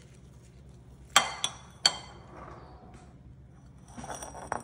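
Metal spoon clinking against a glass mixing bowl while stirring slaw. Three ringing clinks come a little after a second in, and a few softer ones near the end.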